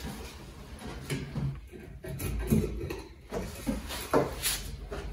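Scattered knocks and handling sounds of hands working a fiberglass boat console against its metal mounting rail.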